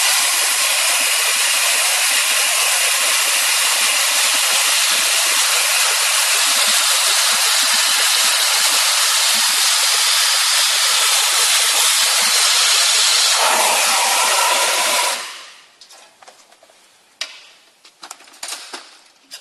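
Compressed-air wet/dry vacuum cleaner running: a loud, steady rush of air hissing through its air-driven suction head. The sound changes briefly just before it is shut off about fifteen seconds in, followed by a few faint clicks and knocks.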